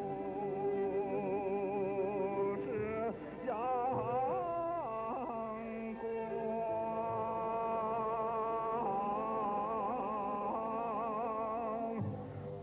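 Dance music with a solo voice singing long held notes that waver strongly, with sweeping slides up and down in pitch about three to five seconds in, over a steady low held tone.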